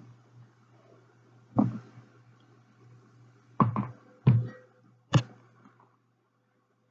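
About five short, dull knocks of things handled on a wooden tabletop: one about a second and a half in, then a cluster between about three and a half and five seconds in. A low steady hum runs underneath and fades out near the end.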